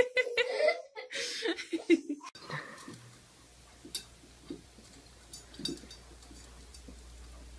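A young child's high voice giggling and squealing for about two seconds, then cut off abruptly. Faint room tone follows, with a few soft clicks and a low hum.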